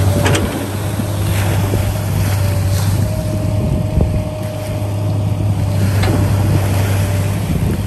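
A motor running steadily with a constant low hum, with wind noise and a few brief knocks.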